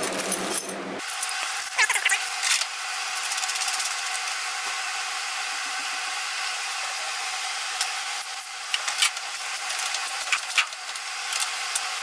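Hand tools and bolt hardware clicking and clinking as a seat belt retractor is bolted down to sheet-metal floor, with scattered clicks over a steady hiss.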